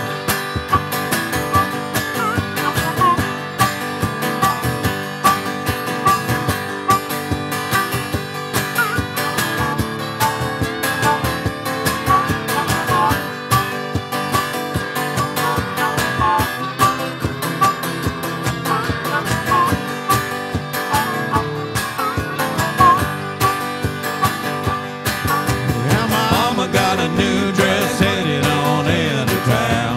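Live country band playing: an acoustic guitar strumming steadily while harmonicas play held, bending notes over it.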